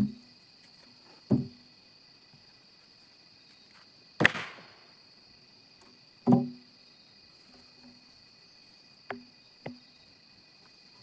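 Wood knocking against wood, about six separate hollow clunks with short ringing decays, the loudest about four seconds in. Timber pieces are being handled, with insects buzzing steadily throughout.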